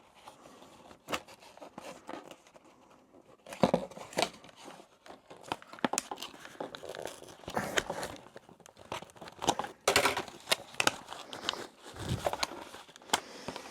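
A toy's cardboard box being torn and pulled open by hand: irregular crinkling, tearing and sharp clicks of packaging and tape.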